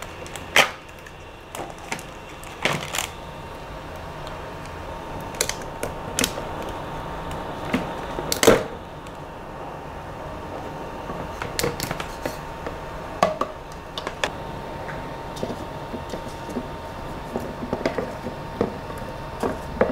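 Cured resin print being scraped off a resin 3D printer's build plate over a plastic tub: irregular scrapes, clicks and knocks, the loudest about half a second, three seconds and eight and a half seconds in.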